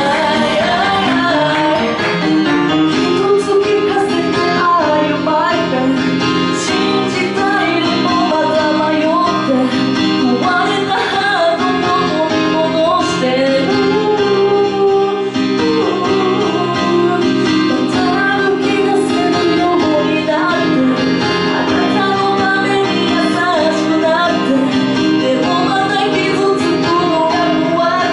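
A woman singing live through a handheld microphone over continuous instrumental backing with guitar.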